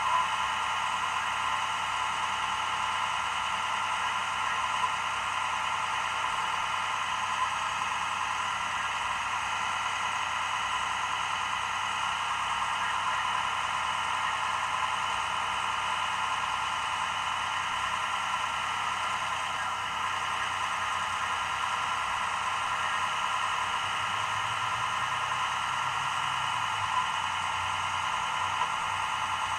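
Steady static-like hiss with no distinct events, and a faint low hum joining it near the end.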